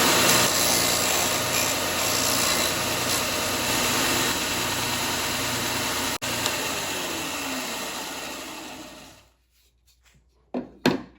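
A Wen benchtop belt and disc sander running while a piece of white oak is pressed against the abrasive, giving a steady, loud grinding rush over the motor hum. Near the end the sound dies away as the machine is switched off and spins down, followed by two short knocks.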